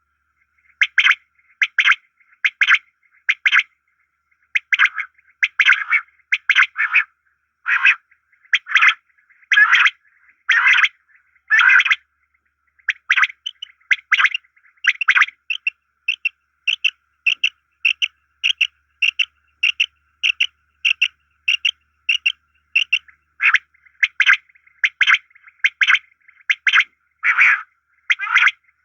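A bird calling over and over in short, high-pitched notes. The calls come in irregular pairs and singles at first; from about 13 seconds in they run faster, about two a second, in a more even series, and near the end they slow again into longer calls.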